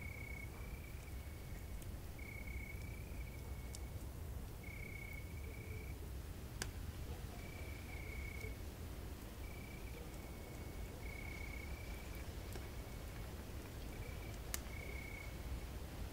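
Crickets trilling at night in short bursts on one steady pitch, about one a second, over a low steady rumble. A campfire gives two sharp pops, one about six seconds in and one near the end.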